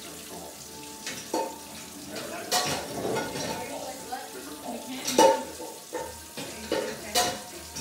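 Dishes and utensils clinking at a kitchen counter, with about four sharp, ringing clinks, the loudest about five seconds in, over a steady hiss.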